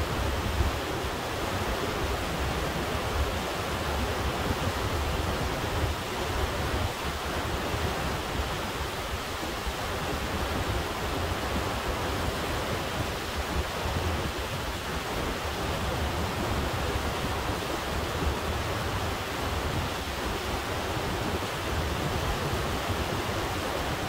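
Glacier-fed Kennicott River rushing through rapids over rocks, a steady, unbroken roar of water.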